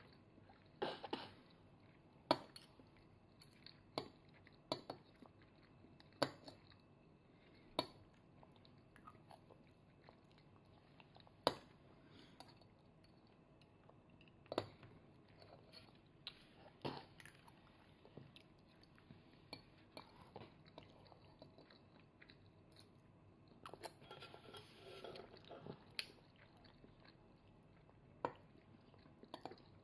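Toddler eating with metal cutlery: a fork and spoon clink and scrape against a plate every second or few, with soft chewing between the clicks. There is a busier stretch of small clatter near the end.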